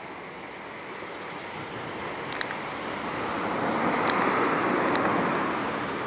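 A vehicle passing by on the road: a rush of traffic noise that builds, is loudest about four to five seconds in, and then fades. A few short sharp ticks sound over it.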